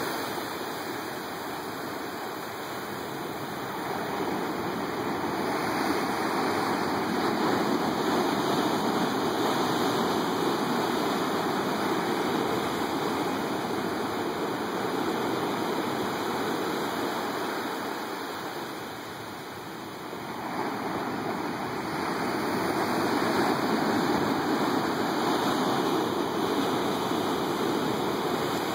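Ocean surf breaking against rock and washing through a narrow channel below cliffs: a continuous rush of water that swells and eases, dropping quieter about two-thirds of the way through before building again.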